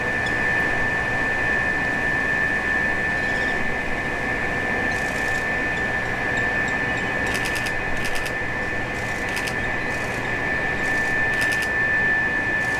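Steady mechanical drone with a constant high-pitched whine, as from a facility's exhaust ventilation machinery. Several short bursts of rapid, high ticking come and go from about five seconds in.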